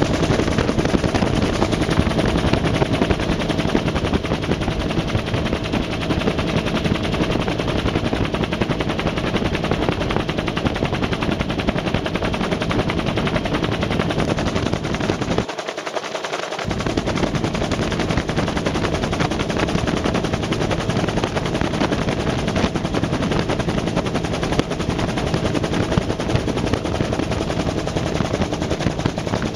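Helicopter noise heard from inside the cabin: the engine and rotor run steadily with a fast, even chop. The low rumble drops out briefly about sixteen seconds in.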